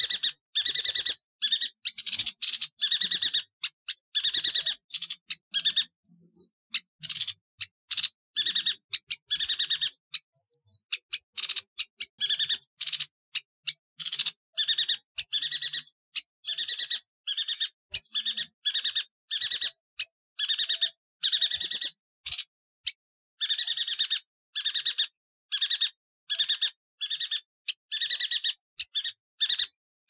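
Yuhina singing: short, sharp, high-pitched trilled notes, each under a second, repeated one after another almost without pause, with a few brief breaks.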